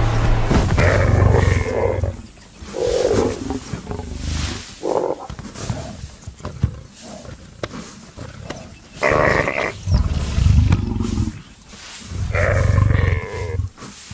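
Lioness growling and snarling in about half a dozen loud bursts as she wrestles a greater kudu bull to the ground for the kill.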